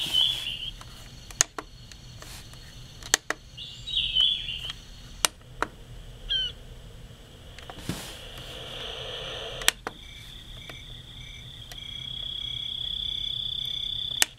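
Nature-sound modes of a clock radio playing through its small built-in speaker as its buttons are pressed. Short bird-like chirps come first, then from about two-thirds of the way through a steady high tone with a faint pulsing that grows louder. Sharp button clicks fall in between.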